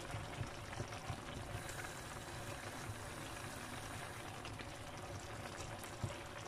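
Sardine-ball tajine faintly simmering in its clay dish: a soft, steady bubbling of the sauce.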